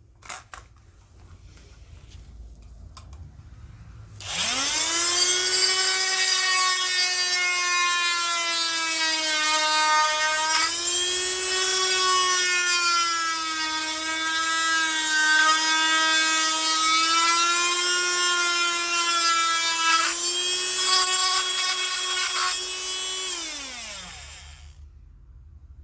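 Small electric power tool spinning up about four seconds in and running at a high, steady whine, its pitch sagging at times as it bites into the plastic, then winding down shortly before the end.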